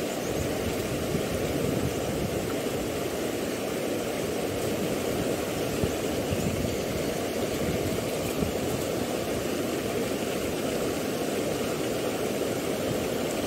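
Steady rushing of water flowing through a small stone-lined irrigation channel that is running high.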